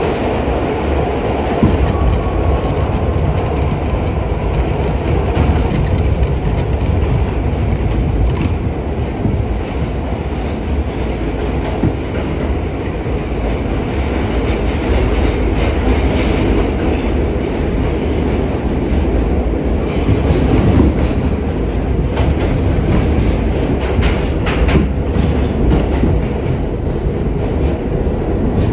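R68 subway car running on the rails, heard from inside the car: a steady rumble of wheels and running gear, with a few sharp clicks from the rails near the end.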